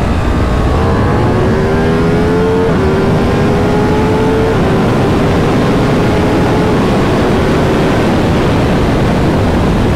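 Ducati Diavel V4's V4 engine accelerating hard through the gears, its pitch climbing and dropping at two quick upshifts about two and a half and four and a half seconds in, then holding steady in fifth. Heavy wind rush runs under it.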